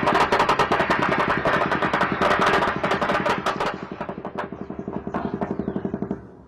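Sustained automatic gunfire from several weapons: dense, rapid shots that thin to scattered bursts about four seconds in and stop near the end. The host takes the weapons to be heavier than light arms.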